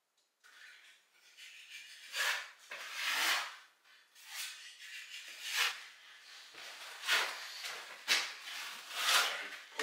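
Metal plastering knife scraping filler across plasterboard joints, a series of separate scrapes about once a second.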